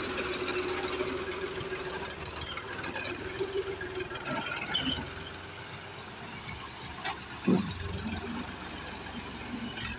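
Farm tractor engine running steadily as it scrapes mud, with a short louder thump about seven and a half seconds in.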